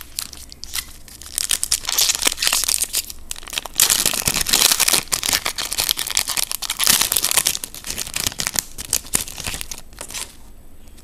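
Foil trading-card pack wrapper being torn open and crinkled by hand, a dense run of crackling and tearing that is loudest midway and dies away near the end.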